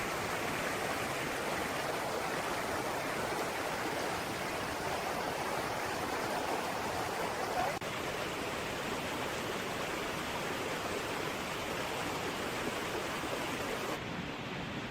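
Steady rush of running water. It dips briefly about eight seconds in and turns slightly duller near the end.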